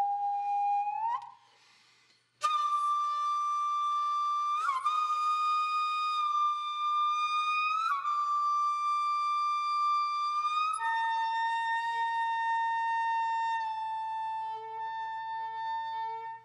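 Background music: a solo flute playing a slow melody of long held notes that slide into one another. There is a short break about two seconds in.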